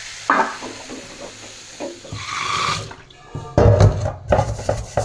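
Water running from a tap into a stainless steel sink, then a non-stick wok being scrubbed with a brush from about three and a half seconds in: loud, irregular scraping and knocking strokes as burnt residue is scrubbed off. A single knock comes shortly after the start.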